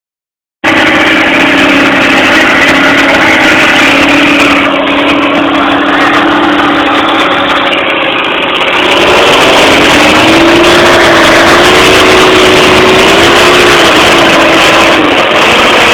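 Tractor engine running steadily, its pitch rising and wavering from about nine seconds in as the engine speeds up and settles.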